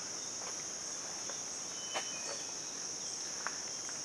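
Steady, high-pitched drone of insects in a cloud forest, with a couple of faint ticks about two seconds in and near the end.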